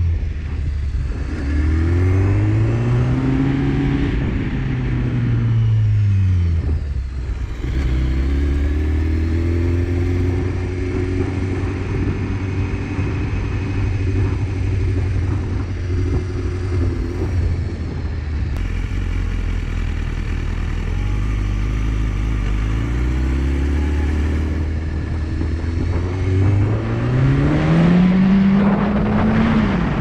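BMW HP4's inline-four engine under way, its pitch climbing and falling as the bike speeds up and slows. It holds steady through the middle, then climbs again with a sudden drop in revs near the end, like a gear change.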